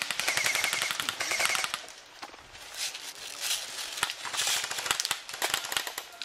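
Airsoft guns firing on full auto as covering fire: a long rapid burst for almost two seconds, then quieter, shorter bursts.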